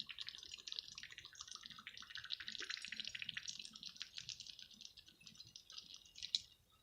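Faint fizzing and bubbling of dry ice in water, a dense fine crackle that thins out toward the end.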